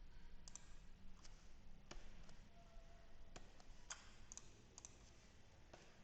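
Faint, irregular clicking at a computer: about eight separate clicks, spaced half a second to a second apart.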